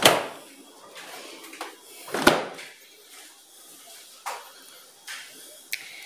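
The doors of a Philco side-by-side refrigerator are shut: a thud right at the start, then a heavier, deeper thud about two seconds later. A few light knocks follow.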